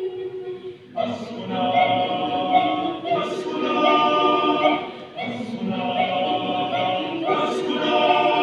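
Mixed choir singing. The voices come in louder about a second in, with brief breaks between phrases.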